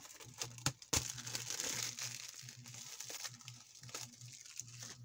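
Plastic shrink-wrap crinkling and tearing as it is pulled off a DVD case, with many sharp crackles and a busy stretch about a second in.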